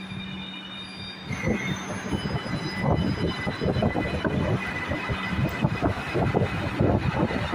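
Metro train running on its rails. A steady electrical hum with faint high tones, then about a second in a louder rumble and irregular clatter of wheels on track sets in, with wheel squeal.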